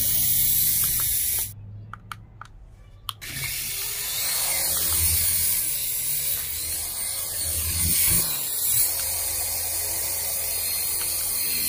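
Small toy induction-flight RC helicopter's electric motors and twin stacked rotor blades whirring at speed. The whir cuts out about a second and a half in and starts again about three seconds in.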